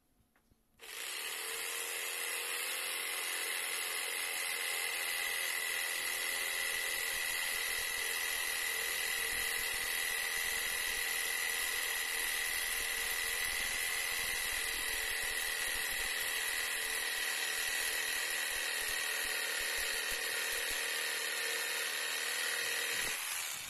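Proman corded electric jigsaw cutting through a wooden board: it starts about a second in, runs steadily at one high pitch throughout the cut, and stops just before the end.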